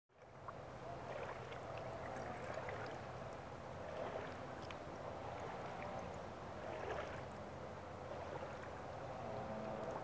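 Swimming pool water lapping and gurgling, with many small splashes and drips, over a low steady hum.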